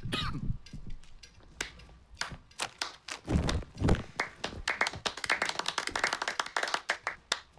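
A stage microphone being handled: scattered taps and two dull thumps, then a dense run of crackling clicks for the last three seconds.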